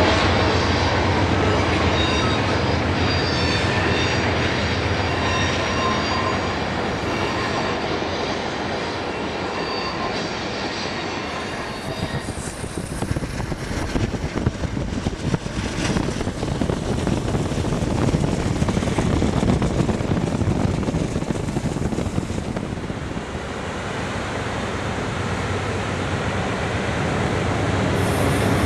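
A passenger train's bilevel cars rolling along the track with a steady rumble of wheels on rail. Thin, high wheel squeals sound on the curve during the first ten seconds or so. After about twelve seconds the cars pass close by, louder, with a rattle of wheel clicks.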